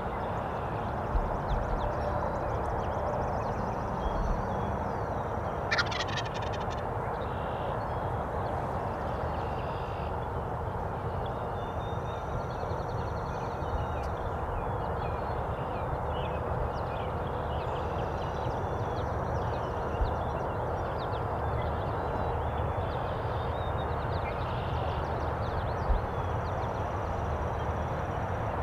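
Wild turkey gobbler gobbling once, a short rattling burst about six seconds in, over a steady background hiss with small birds chirping.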